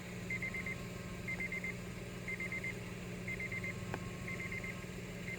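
Electronic beeper sounding quick groups of four high beeps, repeating about once a second, over a low steady hum. A single faint click about four seconds in.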